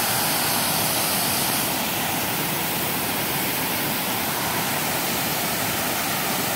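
Small waterfall pouring over rock ledges into a shallow creek: a steady rush of falling water.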